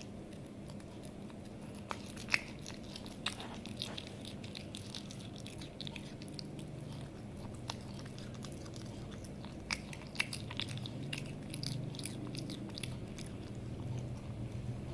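A cat biting and chewing raw chicken breast, with sharp clicking bites in two bouts: a couple of seconds in and again about ten seconds in.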